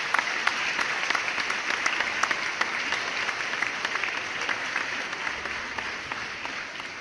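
Audience applause: many hands clapping densely, fading toward the end.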